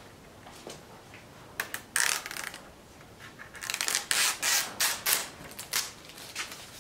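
Red plastic backing liner being peeled off strips of double-sided adhesive tape and handled: a series of short crackling, rustling bursts, coming thicker in the second half.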